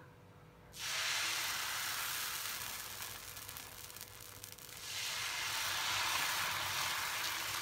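Ragi and moong dal dosa batter sizzling as it lands on a hot dosa tawa; the hiss starts suddenly about a second in. It eases off, then rises again near the middle as the ladle spreads the batter in circles over the hot pan.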